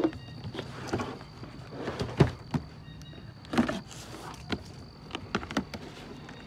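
Cardboard product box being handled and turned over on a table: irregular scrapes and knocks, the sharpest thump about two seconds in.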